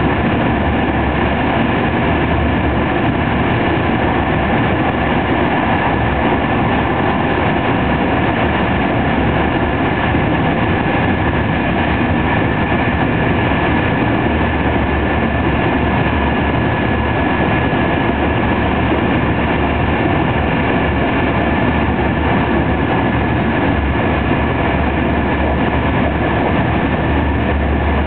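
TER 200 passenger train running at speed, heard from inside the coach: a steady rumble and rush of wheels on rail with a thin steady high tone above it.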